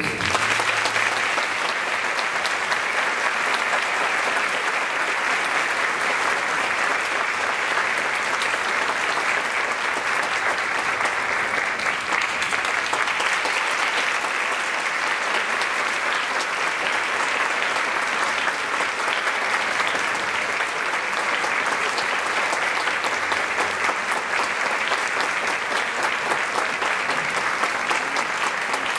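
Theatre audience applauding steadily, a dense even clapping that greets the orchestra as it takes the stage.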